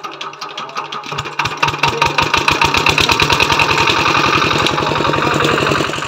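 Small stationary engine that drives the sugarcane crusher by a flat belt, started by hand: it catches about a second in, with loud separate firing strokes that come quicker and quicker until it settles into a steady run.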